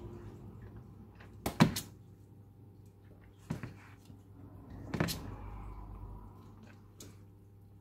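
Metal tongs and a fork knocking against a plastic container while tossing rice noodles: a loud double clack about one and a half seconds in, and smaller knocks at about three and a half and five seconds.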